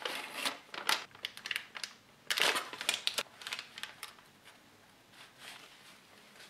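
Plastic MRE flameless ration heater bag and cardboard sleeve crinkling and rustling as the heated entrée pouch is pulled out of them. Irregular crackly rustles with the loudest burst about two and a half seconds in, growing fainter in the second half.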